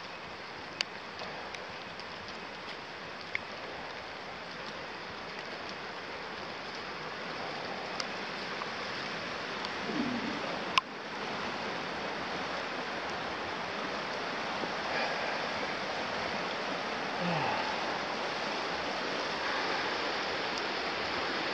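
River water rushing over shallow riffles, a steady rush that grows gradually louder as the microphone nears the bank. A few sharp clicks sound over it, the loudest about halfway through.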